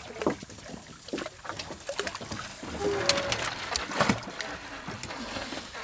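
Nylon gill net being paid out by hand over a small boat's rail, with irregular rustles and knocks as the mesh and its weights drag over the gunwale.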